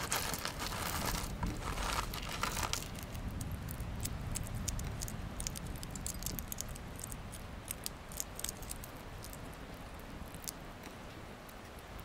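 A plastic zip bag crinkles as green cardamom pods spill out onto a wooden board. From about three seconds in, small dry crackles and light ticks follow as pods are cracked open by hand and the seeds drop into a small ceramic bowl, thinning out near the end.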